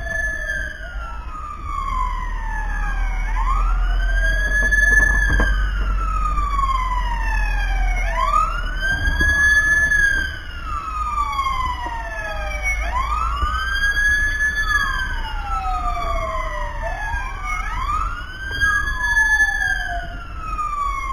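Fire truck siren wailing, rising and falling in slow cycles of about four to five seconds, over a low engine rumble.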